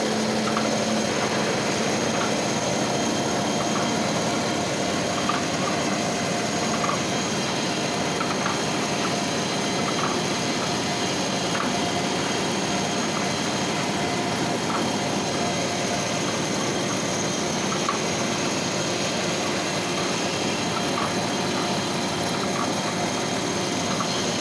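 CNC milling machine running steadily as its cutter mills a groove into a side cover: a constant machine whine over even noise, with faint light ticks.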